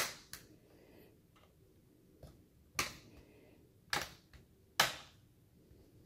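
Plastic retaining clips of a Lenovo ThinkPad E15's bottom cover snapping loose one after another as the cover is pried off: a series of sharp cracks, four of them loud, that sound like it's breaking but are only the clips releasing.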